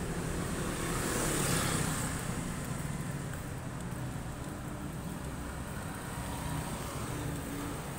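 Street traffic dominated by motor scooters: engines running steadily under a constant road-noise hiss, with a louder rush about one to two seconds in as a vehicle goes by close.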